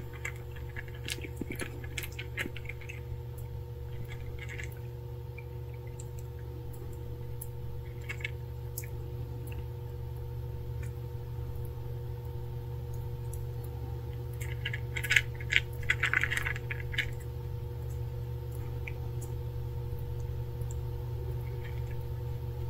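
Stray kittens eating from a food bowl: scattered runs of small crisp clicks as they chew, the loudest run about fifteen seconds in, over a steady low hum.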